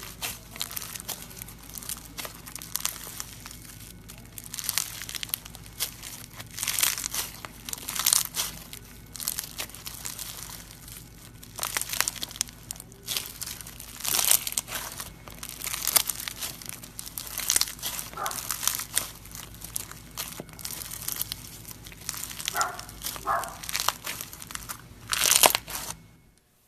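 Foam-bead slime (floam) squeezed and kneaded by hand, the foam beads crunching and crackling in irregular bursts every second or two.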